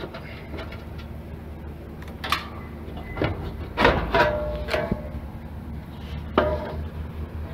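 Sheet-metal cover of an air-conditioner outdoor unit being handled and opened: several knocks and clanks, a few with a short metallic ring, the loudest about four seconds in and again near six and a half seconds. A steady low hum runs underneath.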